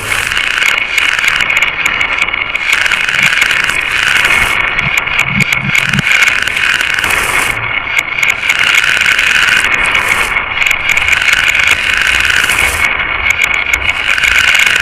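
Glass marbles rolling and clattering along a marble run track: a continuous loud rattle of many small clicks.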